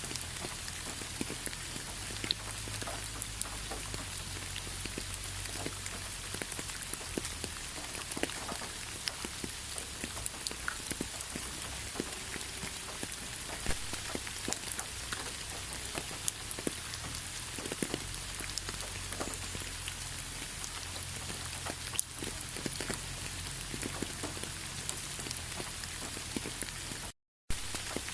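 Steady rain falling in a park, a constant hiss with many individual drops ticking and pattering close by. The sound cuts out to silence for a moment about a second before the end.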